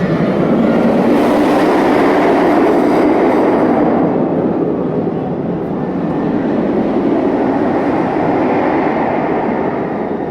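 Scream! roller coaster train, a Bolliger & Mabillard floorless steel coaster, running along its track: a loud, steady rumble that eases slightly near the end.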